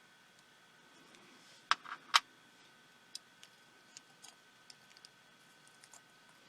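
Small tools and tiny parts clicking as a pico projector is taken apart by hand: two sharp clicks about two seconds in, then a scatter of light ticks.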